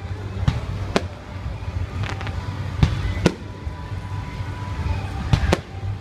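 Aerial fireworks shells bursting overhead: a string of sharp bangs, some coming in close pairs, about eight over a few seconds.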